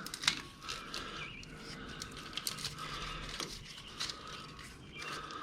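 Faint scattered clicks and rustles of old vehicle wiring being handled and pulled along, over a low steady background hum.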